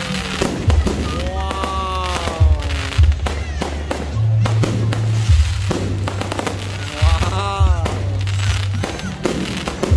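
Aerial fireworks bursting in a string of sharp bangs and crackles, over music with a steady bass line.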